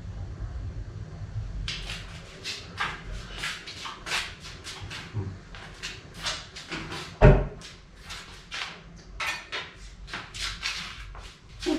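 Irregular knocks and clinks of kitchenware and cupboards being handled, starting a couple of seconds in, with one heavy thump about seven seconds in.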